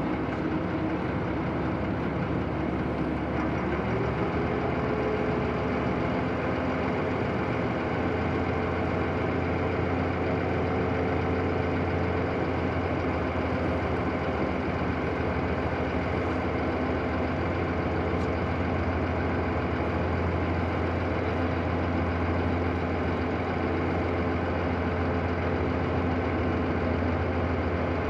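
Marine diesel engines of a harbour tug and a container ship running as a steady low drone. One engine tone climbs in pitch about four seconds in, and the low hum grows stronger from about eight seconds in.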